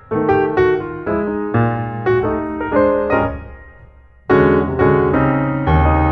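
Background music on piano: struck notes and chords that die away, fading out near the middle and starting again with a fresh phrase a little over four seconds in.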